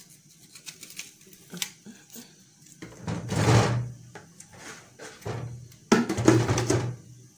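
Handling noises in a kitchen: scattered light knocks and clicks, with two louder rustling scrapes about three and six seconds in.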